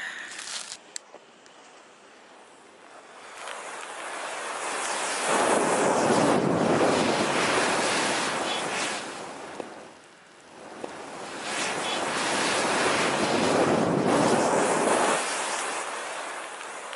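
Ball of thousands of packed matchstick heads flaring up: a loud rushing whoosh of burning that builds over a couple of seconds, holds, and dies away, followed by a second flare-up of the same kind.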